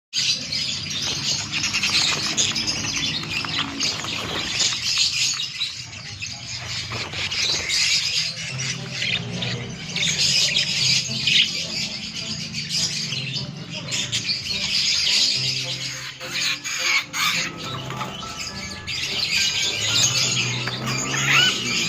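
Many caged songbirds chirping and twittering at once, a continuous dense chorus of high calls, with a lower pitched sound running underneath.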